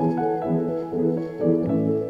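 Instrumental background music: held keyboard notes that change a few times a second.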